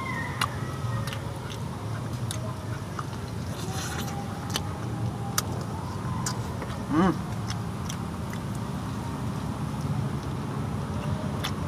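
Close-mic eating sounds of rice and chicken eaten by hand: chewing and lip smacks heard as scattered short clicks, over a steady low rumble. A rooster crows briefly about seven seconds in.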